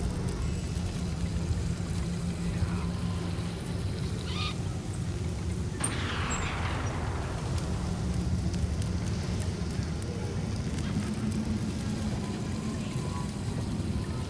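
Sci-fi desert market ambience: a steady low hum runs underneath, and about six seconds in a sudden sound starts sharply and falls in pitch over a second or two.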